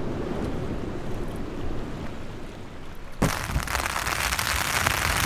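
Gusting wind rumbling outdoors. About three seconds in it cuts abruptly to rain pattering on a tent's flysheet, heard from inside the tent as a dense, bright patter of drops.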